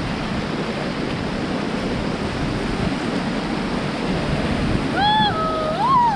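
Whitewater river rushing steadily under a raft. About five seconds in, a person's voice calls out briefly over it.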